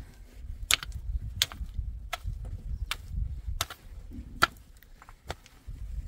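A wooden stick jabbed repeatedly into hard, dry, clumpy earth to dig it loose: about seven sharp knocks, roughly one every three-quarters of a second, over a low rumble.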